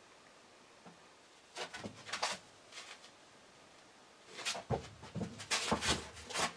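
A small dog's claws and paws scrabbling and tapping on the hard floor of a small enclosed shooting house, in a short flurry about one and a half seconds in and a longer, busier one from about four and a half seconds on.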